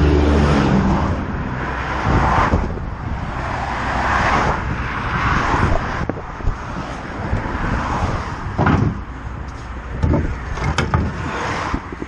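Road traffic noise: vehicles passing in a series of swelling whooshes, over a vehicle engine hum that fades out about a second in, with a few sharp clicks.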